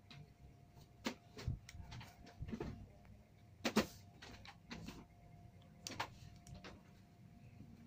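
Scattered clicks and knocks of a homemade PVC-pipe rubber-band toy gun being handled while a rubber band is hooked on as ammunition, with the sharpest click about halfway through and another a little later.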